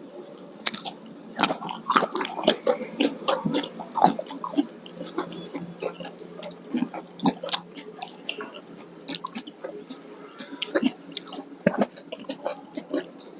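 Close-miked eating sounds: wet chewing and sharp mouth clicks, thick through the first half and sparser after.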